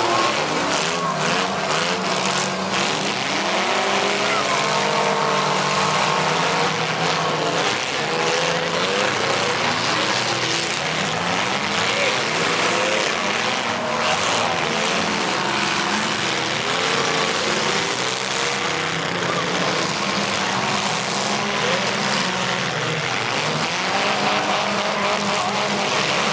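Several demolition derby cars' engines revving hard, over and over, their pitch rising and falling, with occasional bangs of the cars colliding.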